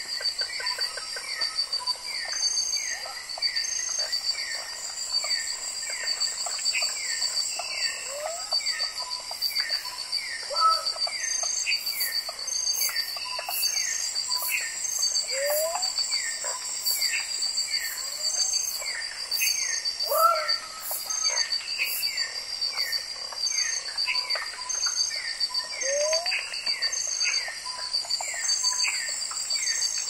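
Amazon rainforest chorus of insects and amphibians, many species each calling in its own pitch band. A steady high pulsing trill runs under regular short high beeps, a row of falling chirps comes about twice a second, and now and then there is a lower rising whoop.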